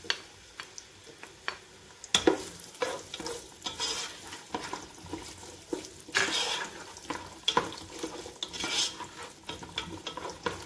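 Diced onion sizzling in oil in a nonstick pot, just added, while a wooden spoon stirs and scrapes it around the pot in irregular strokes, with louder stretches of sizzle and scraping about two-thirds of the way in.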